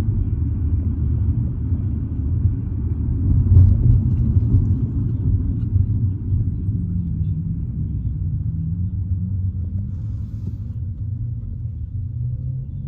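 Steady low rumble of a car driving, heard from inside the cabin, easing off slightly near the end.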